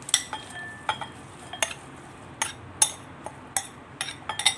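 Spoon clinking against glass bowls as sprouted moong salad is scraped from one bowl into another and mixed. About a dozen sharp, irregular clinks, several in quick succession near the end.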